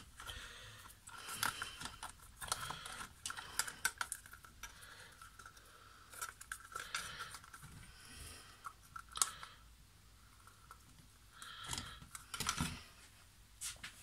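Plastic housing parts of a Nespresso Inissia coffee machine handled and fitted together: faint, scattered small clicks and knocks, the loudest about nine seconds in and again near the end.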